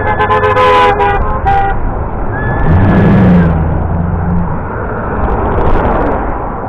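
Passing vehicles honking their horns over steady traffic noise: several horns sound together in the first second, a short toot follows, then a deep, low horn holds for about two seconds in the middle.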